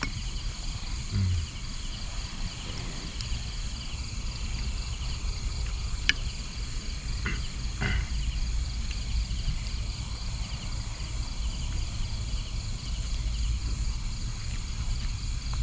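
Steady night-time chorus of calling creatures, a high, evenly repeating trill, over a low rumble. A few sharp clicks come about six and eight seconds in.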